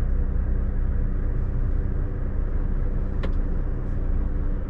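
Truck's diesel engine running steadily at low revs just after parking, with a single short click about three seconds in.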